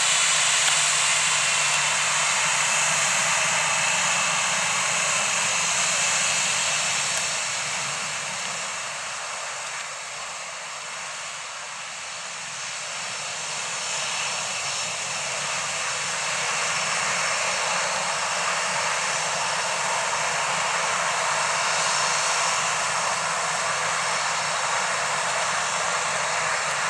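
Boeing 737-700's CFM56-7B turbofan engines running: a steady high whine over a broad rushing noise, which fades somewhat about a third of the way through and builds back up.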